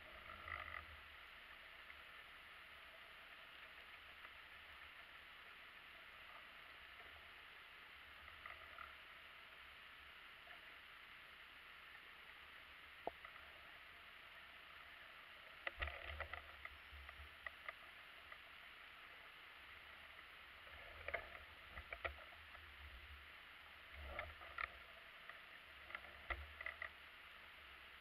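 Faint steady hiss of a camera recording underwater, broken by short clusters of soft knocks and clicks, a few early on and more often in the second half.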